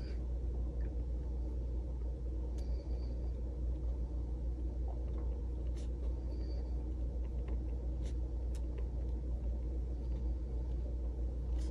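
Steady low hum of room noise, with a few faint ticks and light scratches of a gel pen writing on a paper planner sticker.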